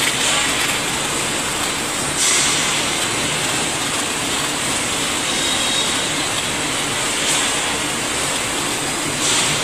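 Steady, loud clattering din of a steel tube mill running, with its forming rolls turning and coolant spraying. Two brief louder rushes of high noise break through, about two seconds in and near the end.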